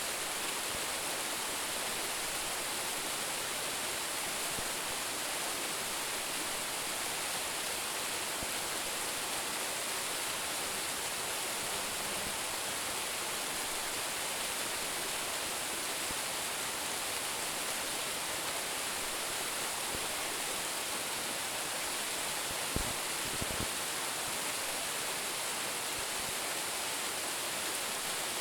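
Roumon Falls, a branching waterfall about 10 m high, pouring steadily: an even, constant rush of falling water. A couple of brief faint knocks come about three-quarters of the way through.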